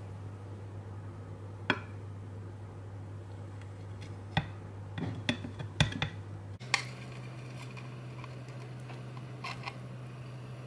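Kitchen knife slicing through a block of gelatin jelly and tapping against a ceramic plate: a few sharp clicks, bunched in the middle, over a steady low hum.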